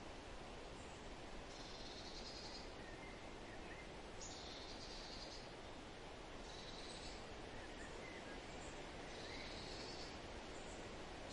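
Faint wild outdoor ambience: a steady background hiss with a high-pitched call about a second long, repeating roughly every two seconds, and a few faint chirps.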